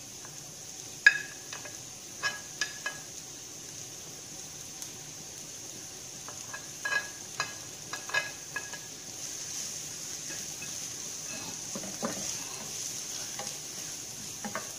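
Chopped garlic and onion sizzling in hot oil in a nonstick frying pan, with sharp clacks of a wooden spatula in two clusters as the pieces are scraped off a plate into the pan. The sizzle grows a little stronger in the second half as the spatula stirs.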